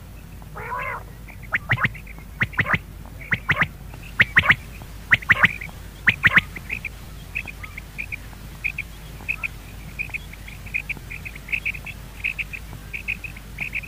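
Game-bird calls: a short rasping call under a second in, then sharp clicking notes in pairs and triples about once a second, giving way after about six seconds to a quick run of short, faint high chirps, two or three a second.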